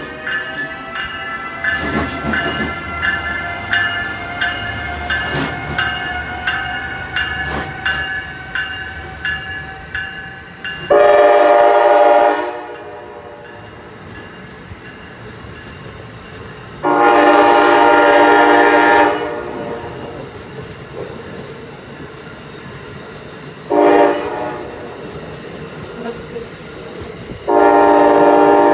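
Amtrak ACS-64 electric locomotive passing with a whine that rises in pitch as it accelerates, its wheels clicking over rail joints. Then its horn sounds four blasts, long, long, short, long, the grade-crossing pattern played as a horn show.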